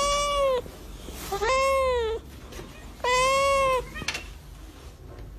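A cat meowing three times, about a second and a half apart. Each meow is a drawn-out call of under a second whose pitch rises and then falls back.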